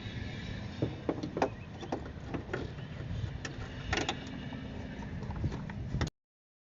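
Irregular metallic clicks and clinks of a 10 mm socket wrench working a nut, over a low steady hum. The sound cuts off abruptly about six seconds in.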